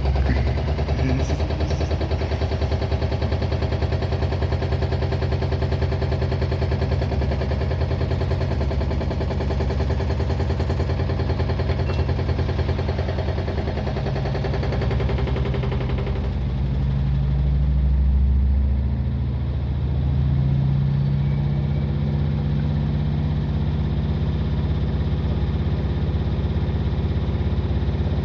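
LG washing machine running its drum maintenance programme, the drum turning with a steady motor hum. About 16 seconds in the sound changes: the higher noise drops away and a lower, steady hum carries on.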